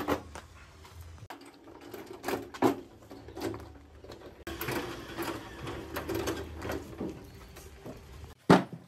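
Heavy wooden tree stumps being handled and wheeled on a small caster dolly: hollow knocks of wood, and a rattling roll of the casters across a concrete floor in the middle. A sharp knock comes near the end.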